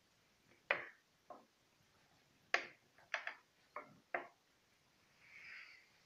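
About seven short, sharp clicks and knocks, spread unevenly over a few seconds, then a brief soft hiss near the end.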